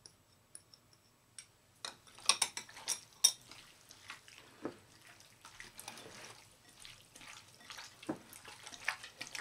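Hands squishing and kneading diced raw chicken in a soy sauce and cooking wine marinade in a glass bowl: irregular wet squelching that starts about two seconds in, with a few sharp clicks near its start.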